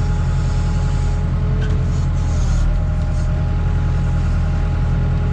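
Case 580K backhoe's diesel engine running steadily at an even pitch during digging, heard from the cab through an open window.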